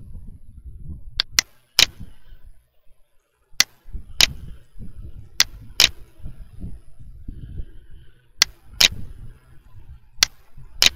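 Computer mouse button clicks, sharp and loud, mostly in pairs a fraction of a second apart as a picture is grabbed, dragged and released, over a low rumble.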